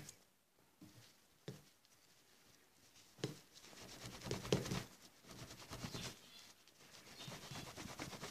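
Microfibre cloth rubbed by hand over a freshly silver-plated metal object, wiping it dry after rinsing. The rubbing is faint and irregular and comes in after a nearly silent start with a couple of soft taps.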